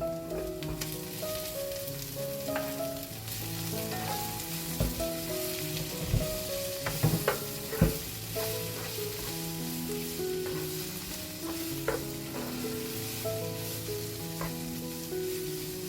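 Vegetables sizzling in a hot frying pan while being stirred, with a utensil knocking against the pan several times in the middle. Soft background music plays throughout.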